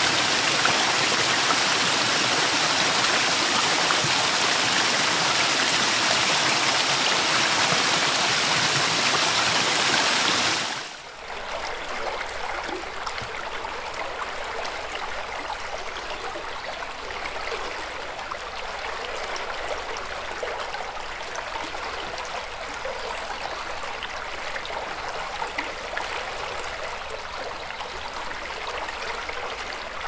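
Water falling close by onto a splashing pool, a loud, steady rush. About eleven seconds in it cuts to the quieter, steady flow of a shallow meadow creek, which fades out at the very end.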